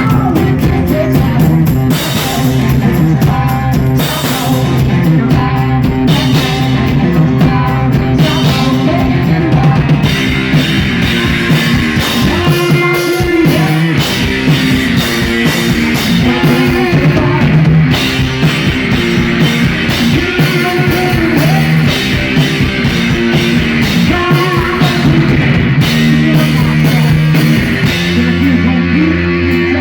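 Live rock from a guitar-and-drums duo: guitar and drum kit playing continuously, with lead singing over them.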